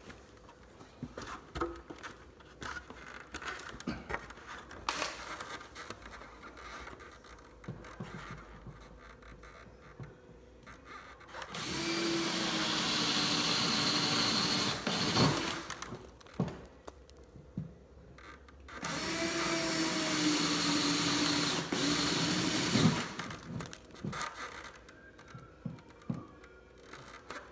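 Power drill with a spade bit boring up into a wooden ceiling in two runs of about four seconds each, its motor hum sagging slightly in pitch as the bit bites. Scattered clicks and knocks of handling come before and between the runs.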